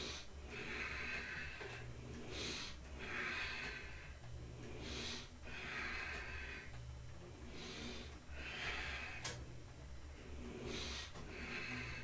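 A man breathing hard and rhythmically while straining to hold himself up on dip bars, one breath in and out about every two and a half to three seconds.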